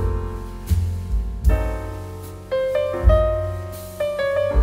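Background piano music, with chords struck every second or so, each ringing and fading away over deep bass notes.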